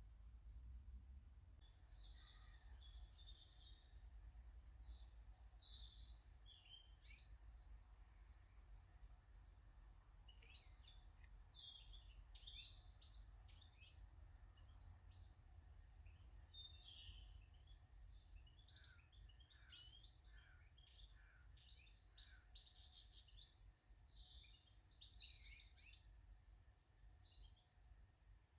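Small garden birds chirping and calling faintly, many short high notes and quick trills, busiest in the second half, over a steady low rumble.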